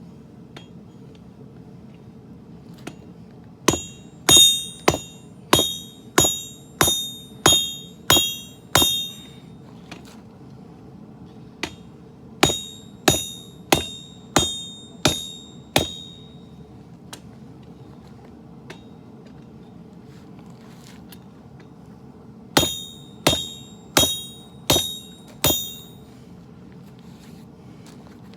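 Forging hammer striking hot steel on an anvil, each blow ringing brightly, in three runs of about five to nine blows at roughly two a second, while a sword blade is hand-forged. A steady low hum runs underneath.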